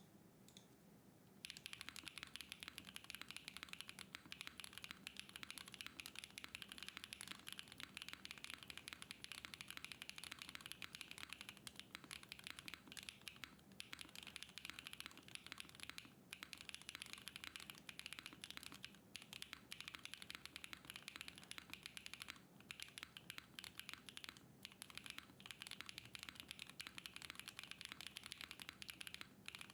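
Fast, continuous typing on a Hoshizora Lilac mechanical keyboard built with an aluminium plate, no case foam and stock switches, fitted with MW Alfheim keycaps. The keystrokes start about a second and a half in and run on as a dense stream of clicks, with a few brief pauses.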